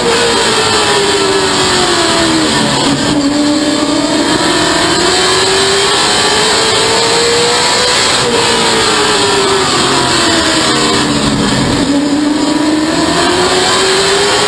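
Stock race car's engine heard from inside the cockpit while lapping: the revs drop to a low about three seconds in and again near twelve seconds as the car slows into the turns, and climb steadily back up in between.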